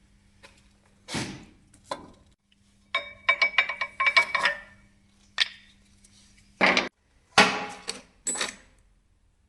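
Metal tools knocking and clinking against metal: irregular single strikes, a quick rattling cluster of clinks with a short metallic ring about three to four and a half seconds in, then a few louder knocks near the end.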